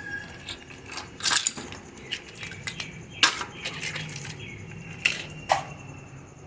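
Scattered clicks and light metallic clinks of a direct-on-line motor starter's parts being handled and taken apart, with a few sharper knocks, the loudest about three seconds in.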